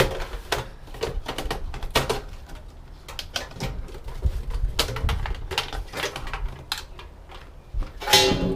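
Irregular clicks, taps and knocks of tools and metal parts as a power supply unit is worked loose from a computer-style metal chassis.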